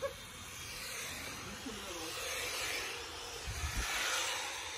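Electric Tamiya TT01 radio-control touring cars running on an asphalt track: a whirring hiss of motors, gears and tyres that swells as a car passes close, about two to four seconds in.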